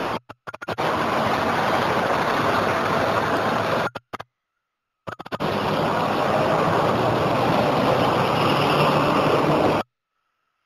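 Loud, hissy street noise of a crowd boarding a city bus at its front door, with the bus running. The sound cuts out completely for about a second, twice.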